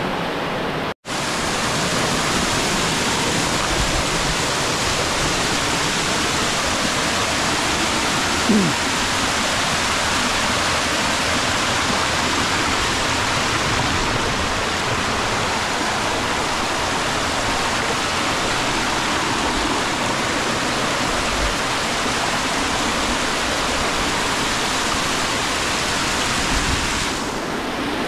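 Steady rush of a small waterfall cascading over boulders into a rocky stream, with a momentary cut-out about a second in.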